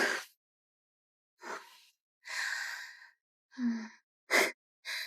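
A person's voice in short breathy sighs and breaths, about six brief ones with gaps between.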